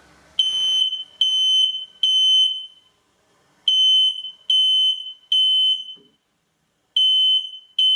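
Kidde ionization smoke alarm sounding on test: loud, high-pitched beeps in groups of three with a pause between groups, the standard temporal-three alarm pattern. Two full groups sound, and a third begins near the end; the alarm is working.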